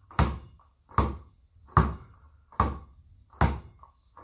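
Basketball dribbled on the floor in a steady rhythm, about five bounces a little over one a second, each a sharp slap with a short ring.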